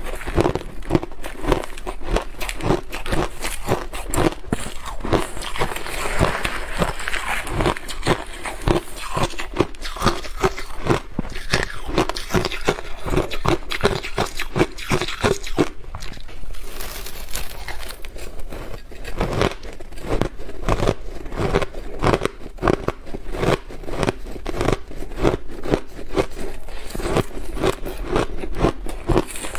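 Shaved ice being chewed and crunched, heard close-up: a dense, continuous run of crisp crunches from bite after bite.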